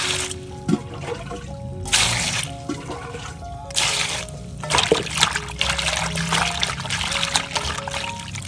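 A stream of water pouring onto pork intestines in a metal basin, splashing and trickling as the basin fills, coming in spells. Background music plays throughout.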